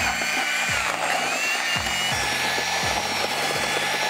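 Cordless drill turning a spiral auger mixer through polymer-fortified mortar in a plastic bucket, its motor whining steadily; the whine wavers and drops in pitch about halfway through as the motor takes more load.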